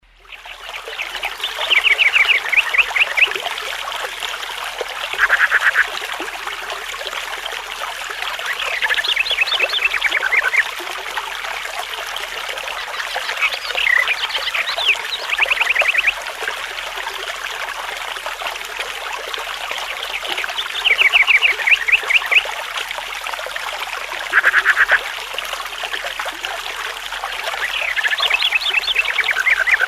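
Water trickling steadily, with animal calls in rapid pulsed trills that come every few seconds.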